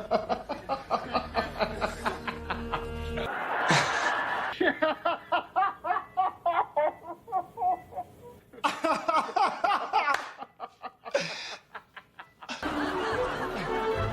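A person laughing in quick repeated bursts over background music, with a short rushing burst about four seconds in. The music's low notes drop out about three seconds in.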